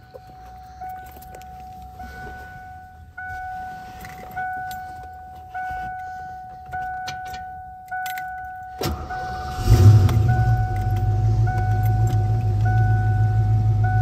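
A car's warning chime dings repeatedly, about once every 1.2 seconds. About 9 seconds in, the 1988 Saleen Mustang's 5.0-litre V8 is cranked briefly, catches, and settles into a steady idle while the chime keeps going.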